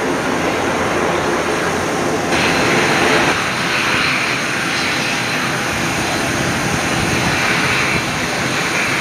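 ATR 42-600 turboprop airliner taxiing, its twin turboprop engines and propellers running with a steady whine and hiss. About two seconds in the sound turns closer and brighter.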